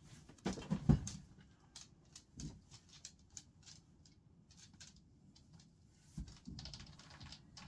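A few dull thumps about a second in, then a greyhound's claws clicking irregularly on a laminate floor as she walks, with a short rustling noise near the end.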